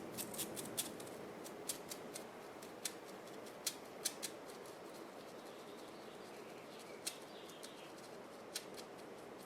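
Paintbrush working paint into the textured sides of a styrofoam block: faint, irregular light clicks and scratches, a few a second at most.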